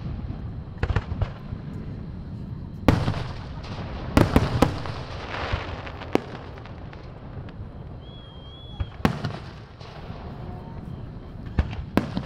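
Aerial fireworks going off, sharp booms at uneven intervals over a low rumble, with a quick cluster of bangs about four seconds in followed by a stretch of crackling.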